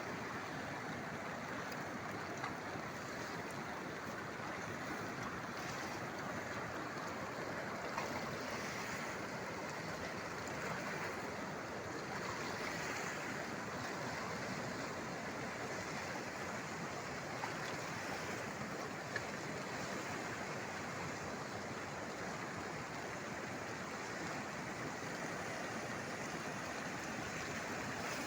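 Steady rushing of Athirappilly waterfall and its river swollen in a powerful flash flood, with a couple of faint clicks.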